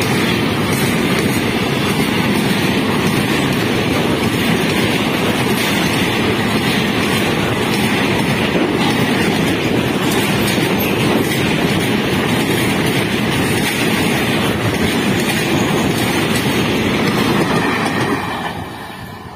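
Goods train of enclosed automobile-carrier wagons running past close by, with a loud, steady noise of steel wheels on the rails. It falls away sharply near the end as the last wagon goes by.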